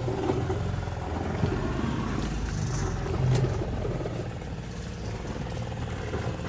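An engine running steadily with a low hum, with a brief sharp click a little over three seconds in.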